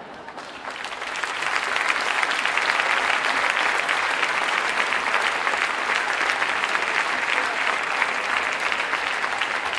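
Large audience clapping, swelling over the first second or so and then holding steady.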